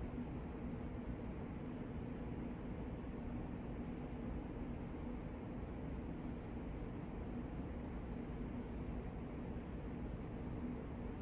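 Tat stamped-steel industrial ceiling fan spinning down with the power off, a soft steady rush of air from the coasting blades on good bearings, under a steady low hum. A thin high chirp repeats about three times a second throughout.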